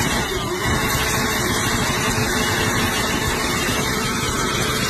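Sportbike engine held at high revs during a burnout, its rear tyre spinning on the pavement; a dense, steady noise.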